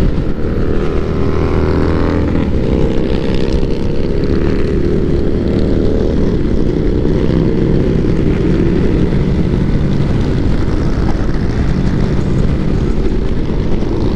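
Engines of many motorcycles in a large group ride running together at speed: a loud, steady drone of overlapping engine notes that shift slowly in pitch.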